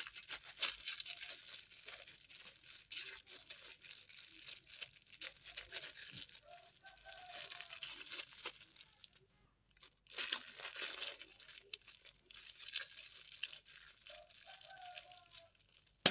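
Clear plastic bag crinkling and rustling as the crumbly tempe bait mixture inside it is squeezed and kneaded by hand, with a brief pause near the middle.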